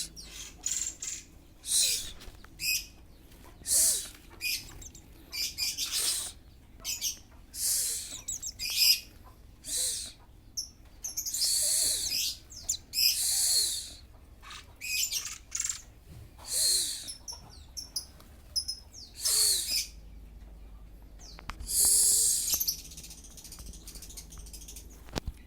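Oriental magpie-robin (kacer) calling in a string of short, loud, high-pitched notes about every second or two, with longer drawn-out calls around the middle and again near the end. The bird is in full breeding condition.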